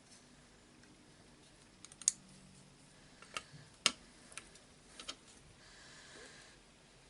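Scattered clicks and light knocks of small jigsaw parts being handled and pressed into the housing during reassembly, about half a dozen in all, the loudest a little after the middle.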